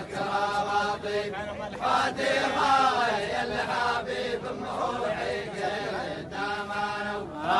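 Men's voices chanting a sung folk poem in a samra style, in long drawn-out notes that bend up and down.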